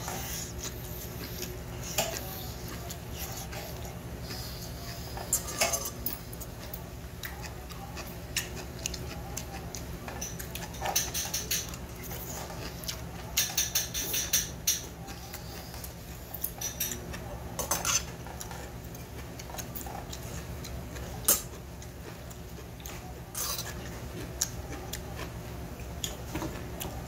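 Eating sounds: chopsticks and a metal spoon click and scrape against a stainless steel bowl of barley bibimbap, with chewing and slurping. Short clicks come scattered throughout, densest around the middle, over a steady low hum.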